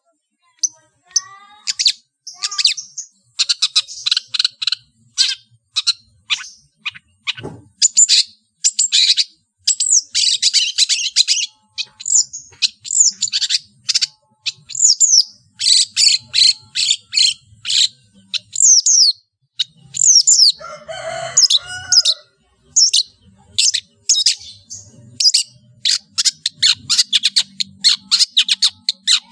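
Long-tailed shrike (cendet) singing a fast, varied song packed with mimicked calls of other birds: rapid sharp chirps and down-slurred whistles, with a lower, harsher chatter about two-thirds of the way through.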